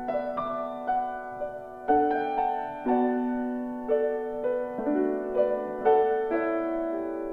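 Solo piano playing a slow improvised piece, single notes struck every half second or so over held lower notes.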